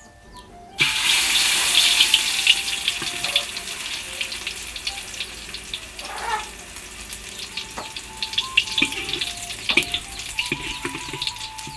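Food going into a hot pan about a second in, then frying with a loud sizzle and crackle that slowly eases.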